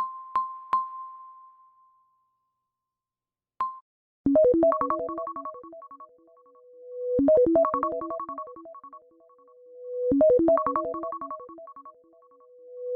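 iPhone iOS 17 ringtone playing: a short synthesized keyboard melody that loops about every three seconds, each loop led in by a swelling tone. Before it starts, three bright pings of the previous tone fade out, and a short click with a cut-off ping comes just before the new ringtone begins.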